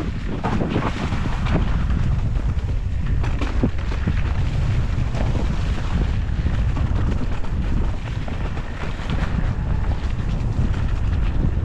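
Wind buffeting the microphone of a camera on a moving electric mountain bike: a steady low rumble with scattered small knocks and rattles from the bike on rough trail.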